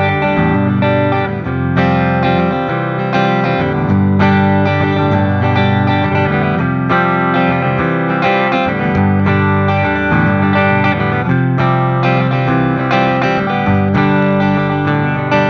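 Les Paul-style electric guitar with humbuckers, played with a pick in a continuous riff of chords and single notes, with a lightly distorted tone. The direct guitar signal goes first through the DBX 163X's instrument input, then through the Prism Sound Lyra's, and near the end through the FBT 500R's tube preamp section.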